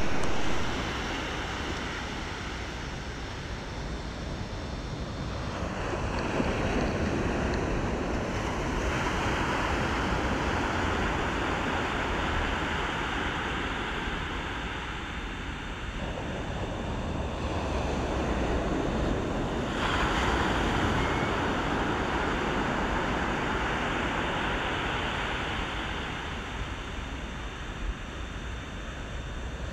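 Ocean waves and surf: a steady rushing wash that swells and eases, with a brighter hiss coming in abruptly about nine and again about twenty seconds in.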